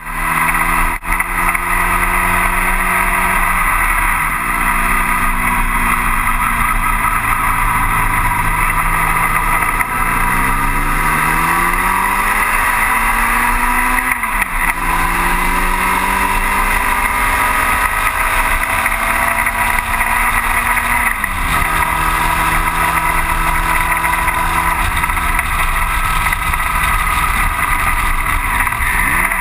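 1960 Cooper T-52 Formula Junior's engine racing flat out, heard from the cockpit. Its note climbs steadily under acceleration and drops sharply at gear changes about halfway and about two-thirds of the way through, over a steady rush of noise.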